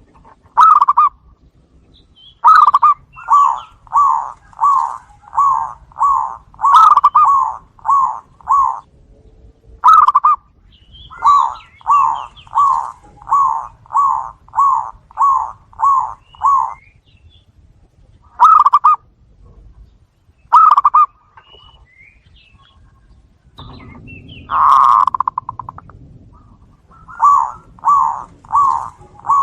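Zebra doves (perkutut) cooing in runs of short, evenly spaced notes, about two a second. Each run of several notes is broken by a pause, and one longer, louder note comes near the end.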